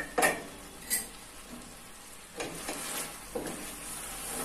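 Two sharp clinks of stainless steel cookware in the first second, then, from about halfway, a wooden spatula stirring pieces of chicken around a stainless steel frypan, with a soft sizzle from the chicken cooking in its own juices.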